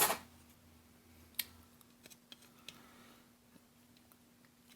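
Small metal hand tools clattering briefly at the start, then a few faint, scattered clicks of a tool gripping a small circuit-board part, over a faint steady hum.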